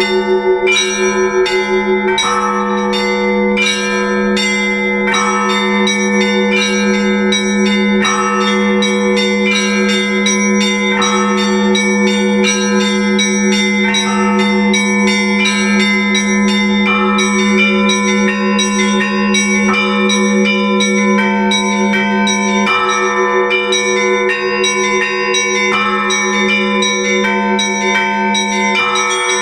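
Orthodox church bells rung for the liturgy: quick, rhythmic strikes on several smaller bells over a steady low hum from a larger bell.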